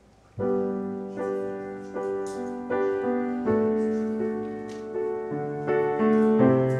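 Grand piano playing the slow introduction to a song, in held chords that change about once a second, starting about half a second in.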